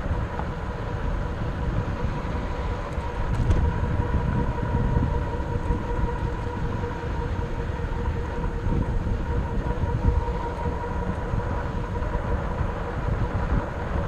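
Riding noise of a RadMini fat-tyre electric bike on a dirt road: wind rumbling on the microphone and tyre noise, with a steady whine.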